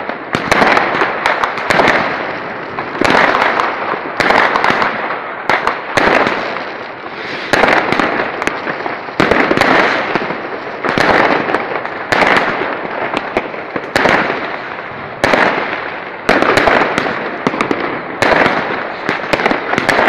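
Aerial fireworks going off in a dense, unbroken barrage: many sharp bangs a second over continuous crackling, swelling and easing every second or two.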